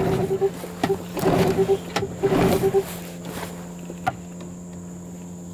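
A 15 hp outboard motor being pull-started: the recoil cord is yanked about three times in the first three seconds and the engine turns over briefly each time without catching. It won't start because it is not getting fuel.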